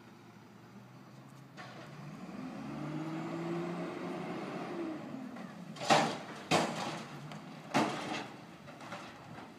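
Front-load garbage truck's engine revving up and then dropping back as its hydraulic arms raise a dumpster over the cab, followed by several loud metal bangs as the upturned dumpster is knocked against the stops to shake the trash out.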